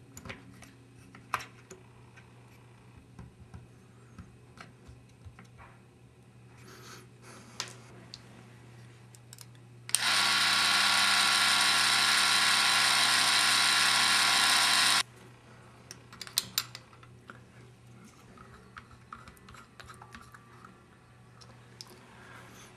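Bolex D8L 8mm film camera's spring-wound clockwork motor running with a steady whir for about five seconds, starting about ten seconds in and stopping abruptly. Light clicks and knocks of the camera being handled come before and after.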